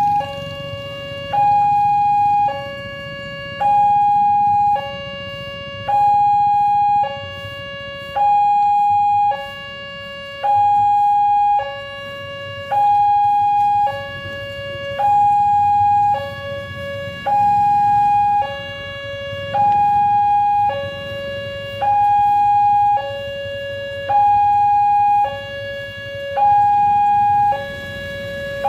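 Electronic warning alarm of a new WANTECH LEN railway level-crossing gate, sounding two tones in turn, a louder high one and a lower one, each held a little over a second in an even, continuous cycle. It signals an approaching train while the barrier arms are down. A low rumble of engines runs faintly underneath.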